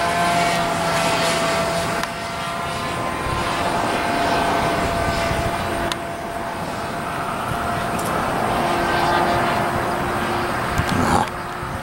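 Engine of a 60-size Bigstick radio-controlled model airplane running steadily in flight, its note drifting up and down as the plane moves. The sound changes abruptly a few times, and near the end it gets louder briefly with a falling pitch as the plane passes close.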